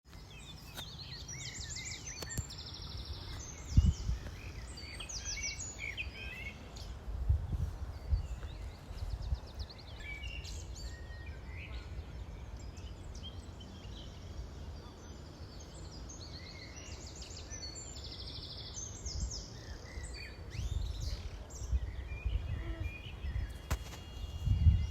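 Several birds singing and chirping in short trills and calls, over a steady outdoor background with a low rumble that swells in gusts a few times.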